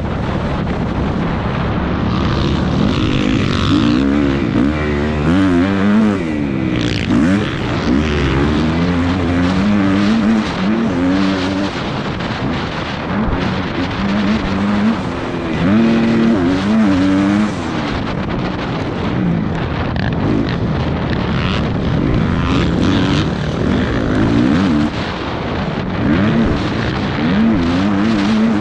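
Motocross dirt bike engine racing, its pitch rising and falling over and over as the throttle opens and closes and the gears change.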